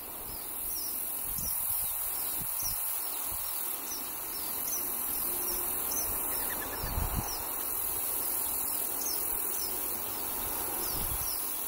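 Steady high-pitched drone of an insect chorus, with short, thin bird calls repeating throughout. A couple of low thumps, about halfway through and near the end.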